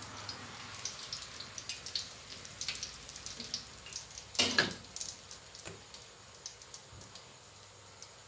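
Wontons deep-frying in hot oil in a wok, crackling with many small irregular pops that thin out toward the end. About four and a half seconds in, a metal utensil knocks loudly against the wok while the wontons are turned.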